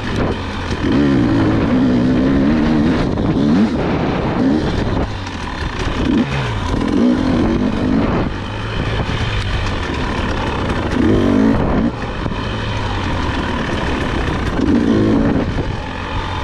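Husqvarna dirt bike engine revving up and falling back again and again as the rider works the throttle along a tight trail, with several hard surges in pitch.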